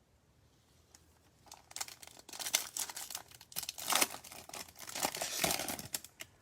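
Crinkling and rustling as a pack of trading cards and its wrapper are handled, a dense run of crackles starting about a second and a half in and stopping shortly before the end.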